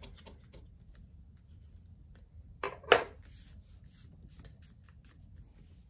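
Light scratching and rubbing of a small metal pick and hand on a paper scratch-off sheet, then two sharp clicks close together about three seconds in as the metal pick is set down on the desk.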